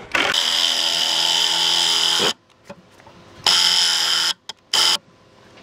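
Ozito cordless impact driver driving long screws into log bench legs. It runs in three goes: about two seconds, a pause, about a second more, then a short burst near the end.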